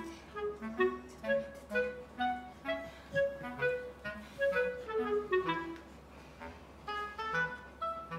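Background music: a melody of short, separate notes that steps up and down.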